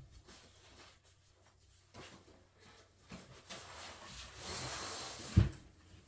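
Handling noise at a desk: a few soft ticks, then about two seconds of rubbing or sliding, ending in a single dull thump near the end as something is set down.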